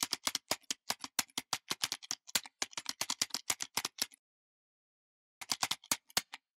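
Typing sound effect: rapid key clicks, about ten a second, for about four seconds, then a pause of over a second and a second, shorter burst of typing.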